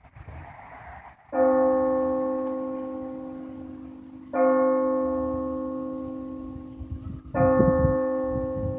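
A single church bell tolling for noon: struck three times about three seconds apart, each stroke ringing out and slowly fading before the next.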